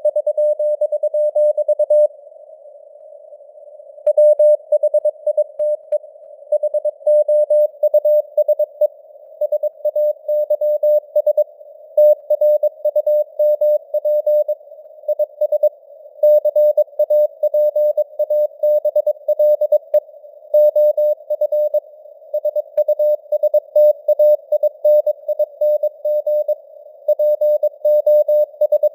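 Morse code sent at 22 words per minute: a single steady mid-pitched beep keyed on and off in dots and dashes, over a narrow band of simulated radio receiver hiss. About two seconds in, the keying pauses for about two seconds, then resumes.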